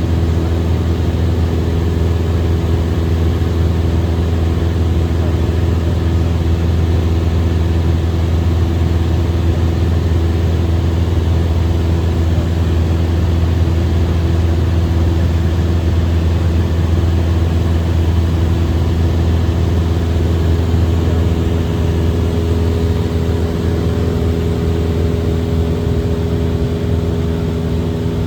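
Small airplane's engine and propeller running steadily in level flight, heard from inside the cabin, loud enough to drown out a voice. The pitch and level hold even throughout.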